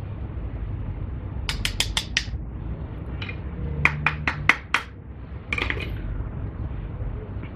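Light metallic clicks and clinks as brake pads and their hardware clips are worked into a car's front caliper bracket: a quick run of about five clicks, then about six more, then a short scrape, over a steady low hum.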